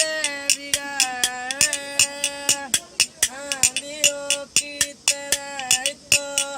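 A lone voice singing a film-song melody in long, bending held notes, with sharp percussive clicks or taps keeping a quick beat under it.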